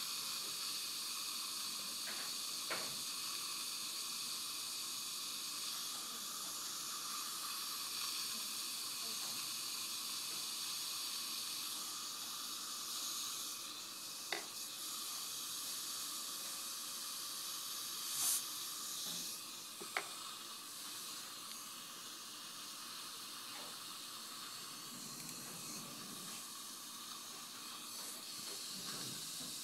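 Steady hiss of a dental dry-field suction device (a combined cheek retractor and saliva ejector) drawing air from the mouth, with a few short clicks.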